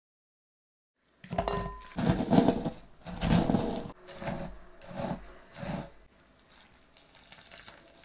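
Kitchen handling noise while preparing an Oreo cake: about six short, noisy bursts less than a second apart, starting about a second in and dying away near the end.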